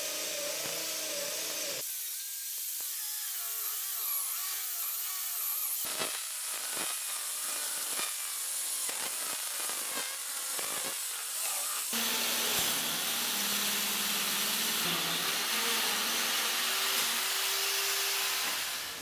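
Chainsaw running under load as it cuts into a log. The sound changes abruptly about two seconds in and again about twelve seconds in, then stops shortly before the end.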